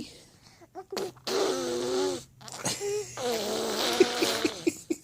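Two long buzzing "raspberry" snores, each about a second and a half, the second ending in a quick flutter.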